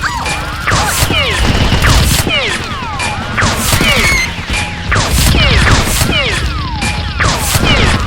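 Background music with a steady low beat and repeated falling, whistle-like sweeps, over a busy run of loud hits and crashes.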